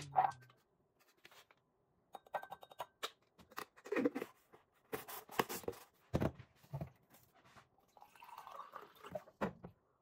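Plastic supplement tub and scoop handled on a counter, with scattered light clicks and knocks. Near the end, water is poured from a filter pitcher into a glass for a second or two.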